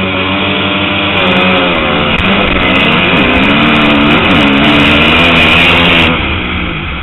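Motocross bike engines revving hard, the rider's own bike loudest through the helmet-mounted camera, its pitch climbing and dropping again and again as it shifts up, with other bikes close by. About six seconds in the throttle eases and the sound drops.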